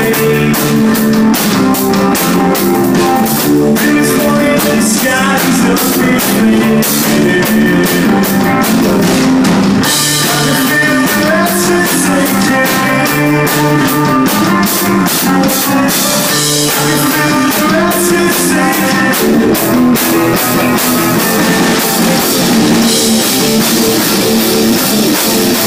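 Rock band playing live: drum kit and guitar, loud and steady.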